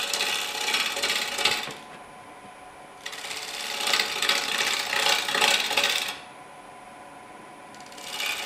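Long-handled bowl gouge cutting into a wooden bowl blank spinning on a wood lathe, in three passes: the cutting noise breaks off about two seconds in, comes back a second later, stops again about six seconds in and resumes near the end. In the gaps only the lathe's faint steady hum remains.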